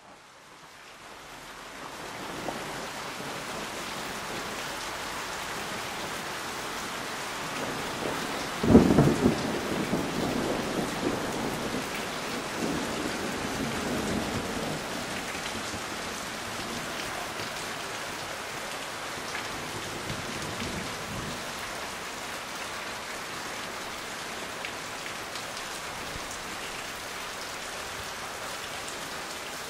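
Steady rain, fading in over the first two seconds, with a sharp thunderclap about nine seconds in that rolls on as rumbling for several seconds before the rain carries on alone.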